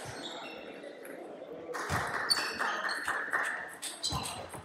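Table tennis ball clicking off the bats and the table in a rally, a run of short sharp knocks that comes thicker in the second half.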